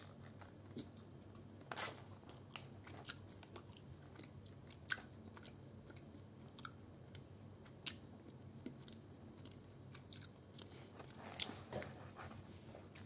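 A person chewing a mouthful of spicy fish snack, with faint, irregular crunches.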